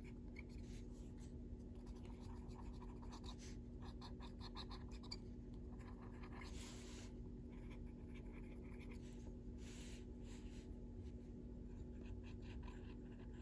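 Soft-core Faber-Castell Black Edition coloured pencil rubbing over paper in short, repeated strokes, faint and squeaky; the squeak is taken to come from the paper.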